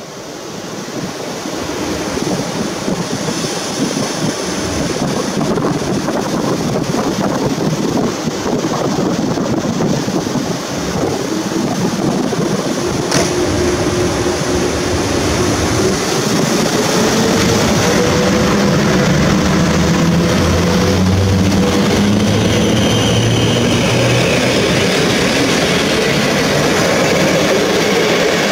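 EP09 electric locomotive hauling a passenger train as it pulls away and passes close by. The locomotive's motor whine rises in pitch as it speeds up, then the coaches rumble past over the rails, louder near the end.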